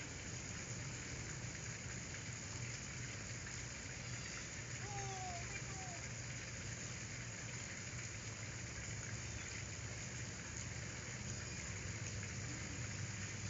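Steady background hiss with a low hum, and a couple of faint, short kitten mews about five seconds in.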